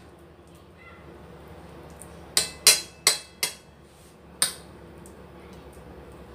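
A metal spoon clinks against a ceramic plate five times while shaping a raw minced pork patty: four quick taps within about a second, then one more a second later.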